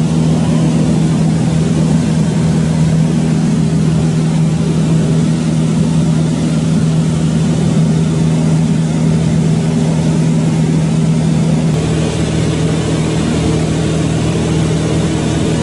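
An engine running steadily at a constant speed under a continuous rushing noise.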